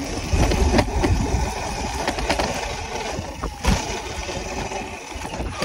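Wind buffeting the microphone and rattling from riding fast over a bumpy dirt trail, a steady rumble with a few sharp knocks.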